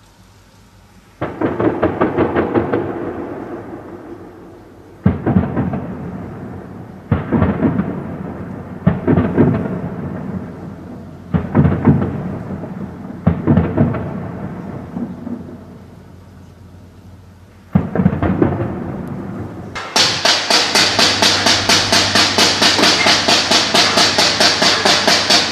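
Seven bursts of gunfire at night, each starting sharply and dying away in a long echo between buildings. About twenty seconds in, a fast, steady drumbeat takes over.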